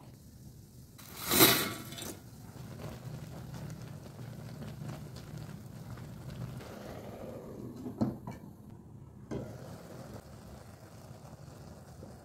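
A spatula stirring Maggi noodles in a simmering nonstick pan over a steady low hum, with one loud brief noise about a second and a half in and two sharp knocks later on.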